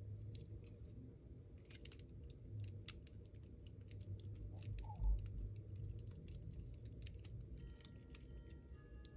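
Lego bricks being pried apart and handled by hand: irregular small plastic clicks and snaps of pieces separating. A single low thump about five seconds in is the loudest sound.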